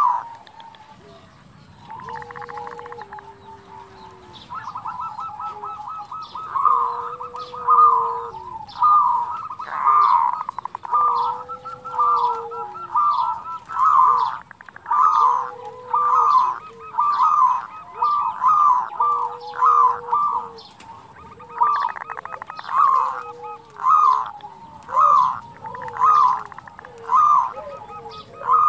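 Zebra doves (perkutut) calling: quick rippling coo phrases repeated about once a second, louder after the first few seconds, with a lower, drawn-out coo every few seconds. These are the perkutut's kerot and bekur calls.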